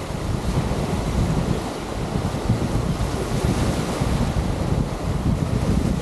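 Wind buffeting the microphone in a steady low rumble, over the wash of surf breaking on the beach.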